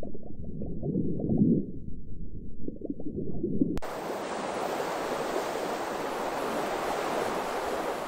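Muffled underwater water noise, dull sloshing and bubbling with nothing high in it, cuts off abruptly about four seconds in. A steady sea surf and wind hiss follows.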